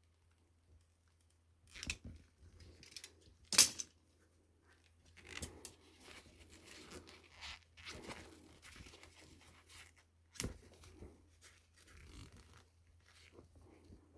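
Irregular tearing and crinkling handling noises from hands-on repair work, with a sharp snap about three and a half seconds in and another about ten and a half seconds in.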